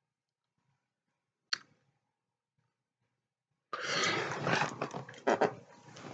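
A single sharp click, then near silence, then about two and a half seconds from the end a sudden rush of rustling and handling noise with a few knocks as the camera is picked up and moved about.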